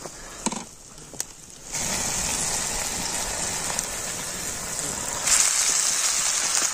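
Chopped tomatoes and onions sizzling in hot oil in a steel kadai over a wood fire: a steady frying hiss that starts suddenly about two seconds in and gets louder near the end as the food is stirred. A couple of light utensil clicks come before it.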